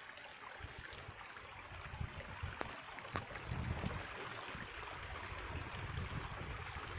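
A small mountain stream running in a steady rush, with wind rumbling on the microphone now and then and two sharp clicks about two and a half and three seconds in.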